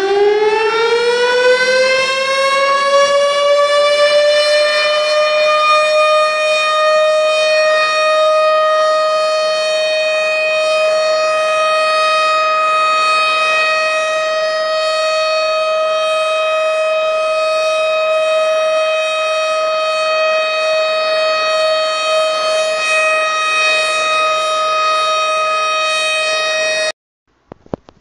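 Civil defense siren winding up, its pitch rising over the first few seconds, then holding one steady tone for over twenty seconds before cutting off suddenly about a second before the end.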